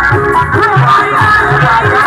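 Loud live music played through horn loudspeakers: a steady, regularly repeating drum beat under a wavering melody line.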